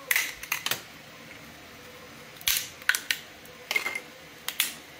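3D-printed silk PLA tree supports snapping and cracking as they are broken off a print by hand: sharp plastic clicks in several short clusters.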